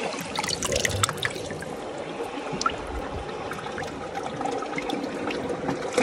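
Shallow tide-pool seawater trickling and splashing with small drips as a hand dabbles in it, busiest in the first second or so.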